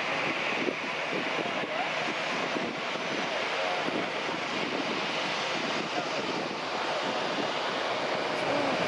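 Airliner engines heard as a steady rushing noise that grows slightly louder near the end, with wind gusting on the microphone.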